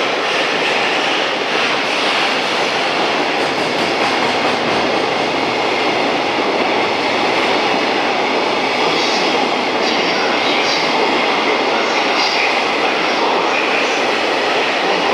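Container wagons of a freight train rolling past at speed, a steady loud rumble of wheels on rail echoing in a covered station. Short high squeals from the wheels come and go in the second half.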